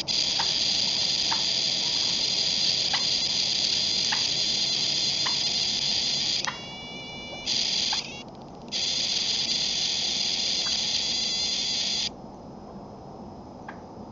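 A loud, steady hiss that cuts off abruptly about six and a half seconds in and becomes a whistling tone for about a second. It comes back shortly after and stops about twelve seconds in. Faint short chirps recur about once a second underneath.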